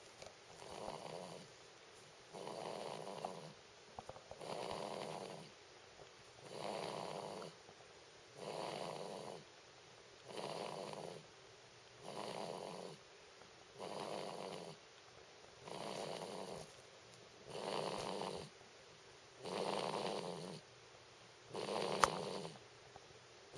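Steady, rhythmic snoring, one snore about every two seconds, each lasting about a second with a short quiet between. A sharp click near the end.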